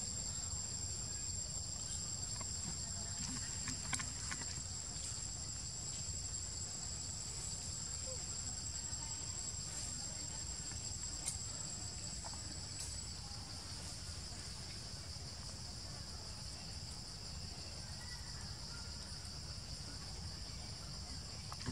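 Steady, high-pitched drone of forest insects, with a second, thinner and higher insect tone that stops about 13 seconds in. A low rumble runs underneath.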